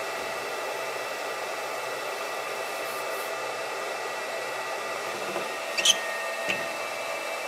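Steady whir from the MarkStar Pro handheld fiber laser marker's cooling fan, with a few thin steady whining tones over it. About six seconds in there is a sharp clack, then a smaller knock, as the marking head is lifted off the metal plate.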